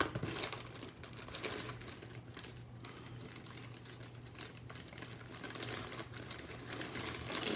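Irregular rustling and light plastic clicking of a hand rummaging through a stash of nylon zip ties, over a steady low hum.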